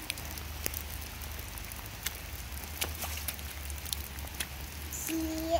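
Steady patter of rain with scattered sharp ticks of drops and a low rumble underneath.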